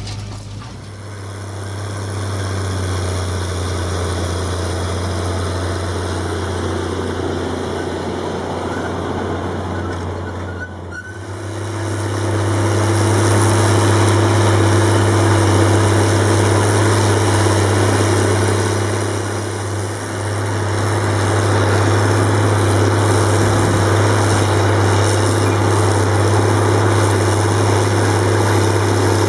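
Caterpillar Challenger MT765C tracked tractor's diesel engine running steadily, with a deep, even hum. The sound dips briefly and then grows louder about 11 to 12 seconds in.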